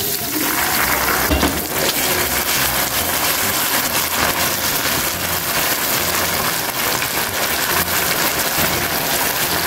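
Hot butter caramel sizzling and crackling hard in a nonstick pan as cream is poured in and whisked through it.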